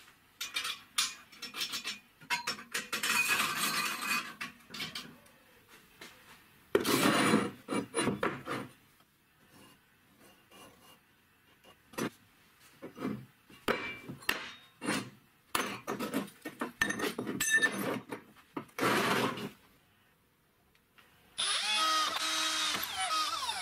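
A run of short metalworking noises (clinks, knocks and scraping bursts of steel parts being handled and worked), then near the end a drill press boring into a steel plate clamped in a vise, a steady whine whose pitch falls as it finishes.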